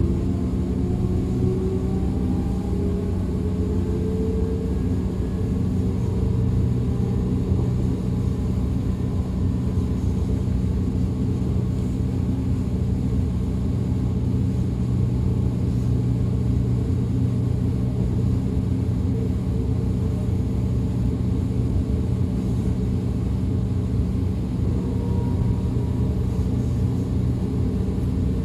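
DB Class 425 electric multiple unit running, heard from on board: a steady rumble of wheels on the track with a low hum, and a traction-motor whine that climbs in pitch over the first few seconds as the train accelerates, then fades into the rumble.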